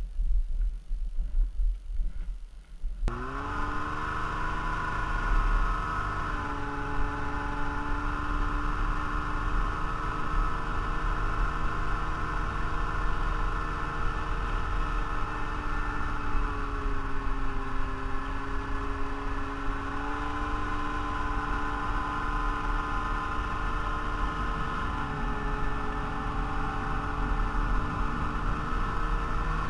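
Snowmobile engine running at a steady riding speed, its pitch dipping and rising slightly a few times. For about the first three seconds, before the engine is heard, there is low wind buffeting on the microphone.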